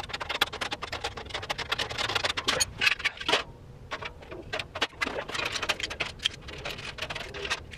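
Rapid clicking and clattering of steel cart panels, bolts and hand tools being handled during assembly, sped up in a time lapse so the knocks come many to the second.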